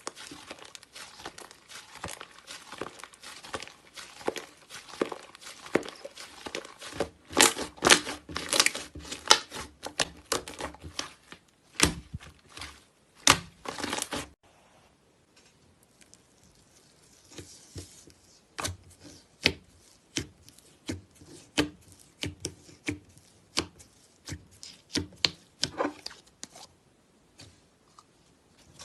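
Slime being squeezed and pressed by hand. Dense crackling runs through roughly the first half, then comes a short quiet spell, then scattered sharp clicks and pops.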